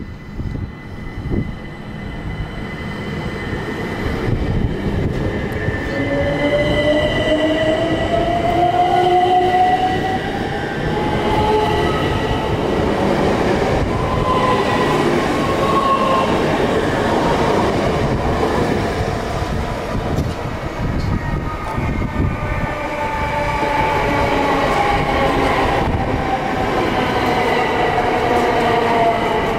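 Electrostar electric multiple unit on the move, its traction motors giving a whine that climbs in pitch from about six seconds in, over a steady rumble of wheels on rail. Near the end a second whine falls steadily in pitch, as a unit slows.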